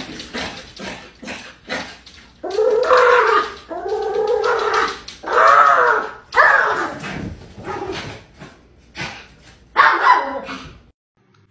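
Small dog whining at a glass door: a run of drawn-out calls that rise and fall, with short clicks between them. It stops suddenly near the end.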